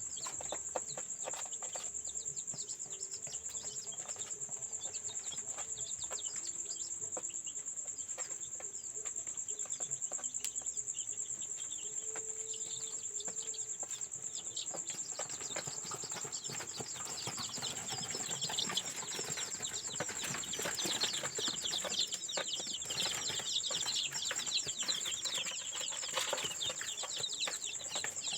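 Many newly hatched chicks peeping, short high peeps that grow busier and louder from about halfway through, over a steady high-pitched whine.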